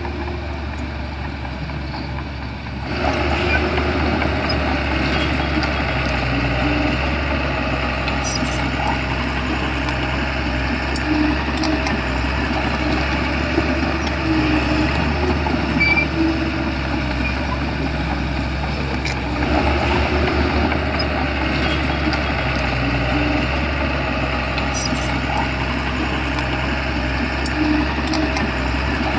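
Shantui bulldozer's diesel engine running steadily, growing louder about three seconds in, with a few brief high clicks.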